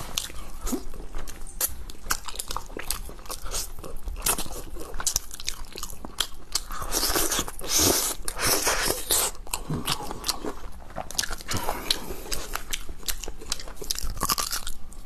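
Close-miked mukbang eating sounds: a person biting food off a skewer and chewing it, with many sharp crunches and smacks that come thickest in the middle.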